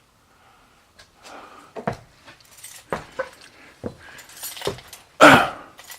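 Footsteps on a floor, roughly one a second, with light handling noise between them, and a louder, noisy burst about five seconds in.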